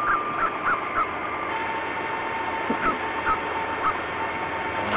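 A Pomeranian yapping rapidly, short high barks about three a second, with a thin steady whine behind them.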